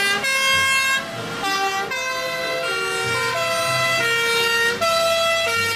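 Fire engine sirens sounding, a string of held notes that change pitch every half second or so, with more than one siren going at once.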